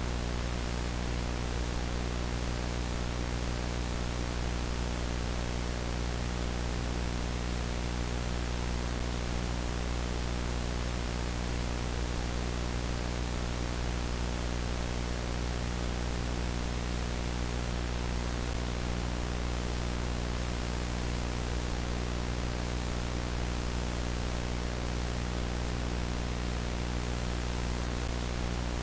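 A steady hiss of static over a low electrical hum, with no change in level or pitch.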